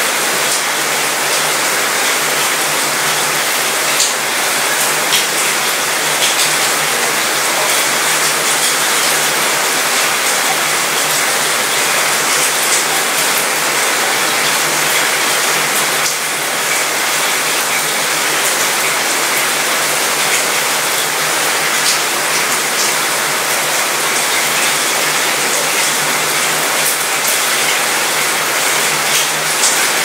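Steady rain falling on a cruise ship's mostly metal balcony, the drops pattering and rattling on the metal, with a steady low hum underneath.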